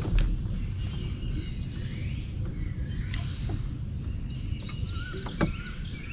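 Several birds chirping and calling in short, quick notes over a steady low rumble, with a sharp click just after the start.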